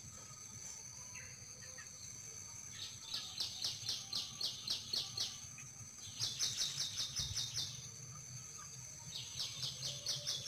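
A bird calling in three bouts of rapid, evenly repeated high chirps, each bout lasting one to two and a half seconds, with a steady faint high-pitched tone behind.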